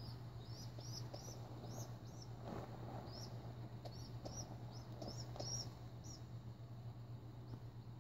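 Baby pigeon peeping: a string of short, high-pitched squeaks, about two a second, stopping about six seconds in. A brief rustle of the bedding about two and a half seconds in, over a steady low hum.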